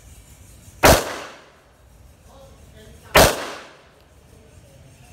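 Two shots from a CZ P-10 F pistol, a little over two seconds apart, each followed by a short echo.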